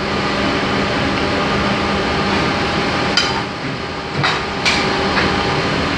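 Two-station shoe injection molding machine running with a steady hum, with a few sharp metallic clanks from the mold being handled about three to five seconds in.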